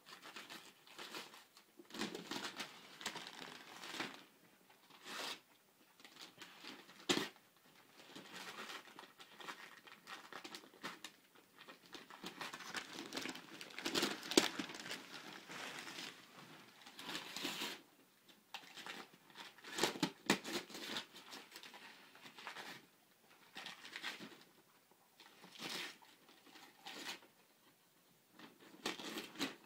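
Christmas wrapping paper crinkling and tearing in irregular bursts as a Rottweiler puppy rips it off a tire, with a few louder rips along the way.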